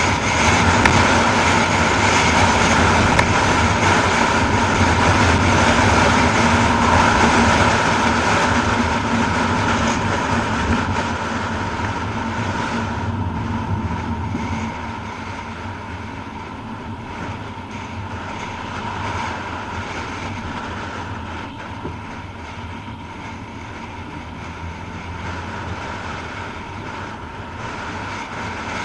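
Car driving on a tarmac road, heard from inside: steady engine and tyre noise that drops noticeably about halfway through as the car slows into a built-up street.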